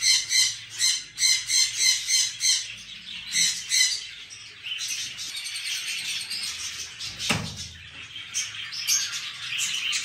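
A room of caged small parrots calling together: repeated shrill squawks about two a second, giving way to a continuous high chattering, with one short falling sound about seven seconds in.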